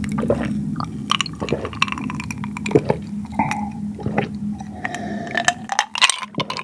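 Water being gulped from a glass in a series of wet swallows and small clicks, over a steady low drone of military fighter jets flying nearby.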